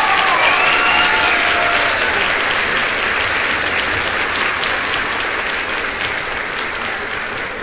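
Crowd applauding: a dense, steady clapping that slowly fades.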